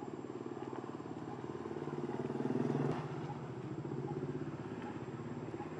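An engine running steadily with a fast pulsing hum. It grows louder about two seconds in, then eases back down.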